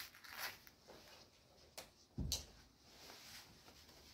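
Faint rustling and a few light clicks from someone handling gear beside a horse, with one dull thump about two seconds in.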